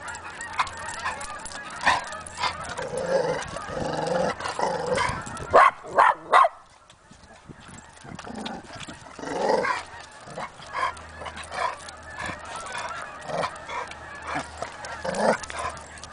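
Two dogs, a Chow Chow and a West Highland White Terrier, playing and giving short honking yips and barks throughout, with three loud sharp barks in quick succession about five and a half seconds in.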